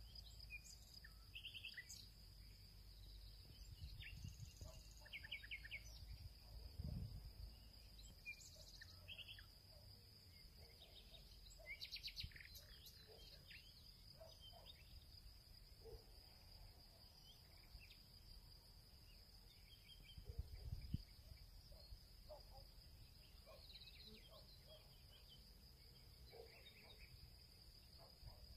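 Faint ambient sound: a steady high-pitched insect trill with scattered short bird chirps and a few soft low thumps.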